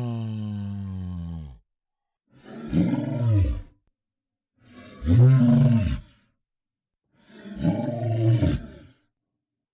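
Monster roar sound effects: a long, deep roar with a rising and falling pitch ends about a second and a half in. Three separate roars of about a second and a half each follow, with short gaps between them.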